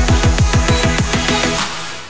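Electronic drum and bass music with a fast run of deep kick-drum hits that drop in pitch; the drums stop near the end, leaving a short held note.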